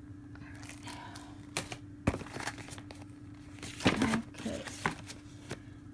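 Clear plastic bag crinkling and rustling as it is handled, with a few sharp knocks, the loudest about two and four seconds in. A faint steady hum runs underneath.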